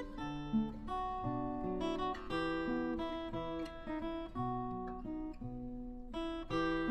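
Acoustic guitar music: a melody of single picked notes, one after another.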